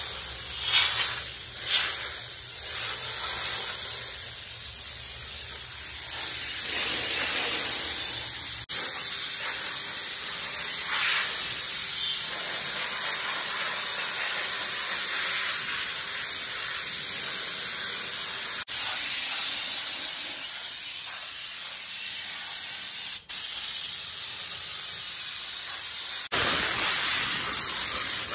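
Handheld steam-cleaner gun jetting steam in a steady high hiss, broken by a few brief gaps.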